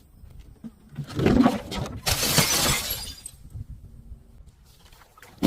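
Glass bottle being crushed and shattering: a crunching starts about a second in, then a burst of breaking glass that fades out over about a second.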